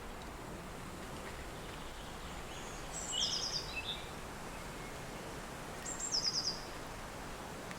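Steady wind noise, with a songbird singing the same short high phrase twice, about three seconds apart: a brief note followed by a quick run of four or five notes.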